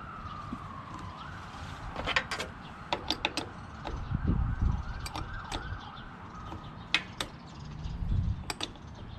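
A distant siren wailing, its pitch falling and rising again in the first couple of seconds, then holding before it fades. Several sharp clicks and knocks are heard over it.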